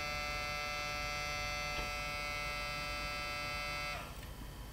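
EME279TD floppy drive motor in a laptop spinning with a steady electric whine, then cutting off abruptly about a second before the end as the drive fails to read the disk. The motor turns but drives nothing, which the owner takes for a missing or perished rubber drive belt.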